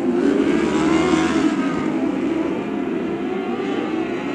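A pack of lightning sprint cars racing on a dirt oval, several engines running hard together at once, their pitch rising about a second in as the cars accelerate.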